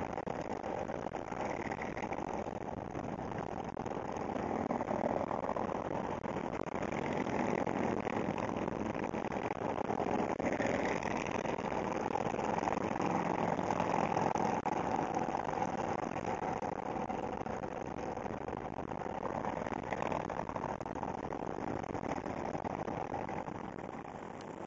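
Steady engine and road noise of vehicles travelling at highway speed, with motorcycles riding alongside. It grows louder through the middle and eases off near the end.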